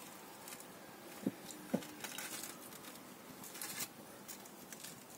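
Faint handling noises around a small plastic plant pot of fresh potting soil: two light knocks a little over a second in, then soft scattered rustling.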